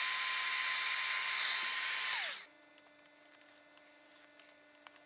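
A small electric power tool running at steady high speed with a high whine. It is switched off a little over two seconds in and its pitch falls as it spins down. Near silence with a faint hum follows.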